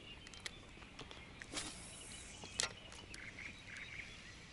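Quiet open-air ambience over reedbeds, with faint bird calls and a few scattered sharp clicks and knocks.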